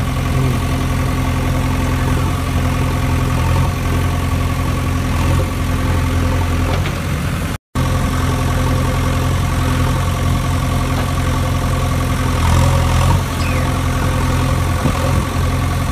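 Engine idling steadily, a loud, even drone that breaks off for a moment about halfway through.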